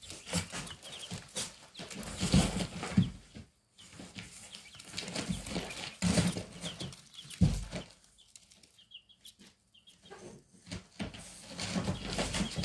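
Silkie chicks scuffling at a feed dish in a cardboard box: feet scratching, wings fluttering and bodies bumping against the cardboard, in irregular bursts with a few louder knocks. A few faint peeps come about two-thirds of the way in.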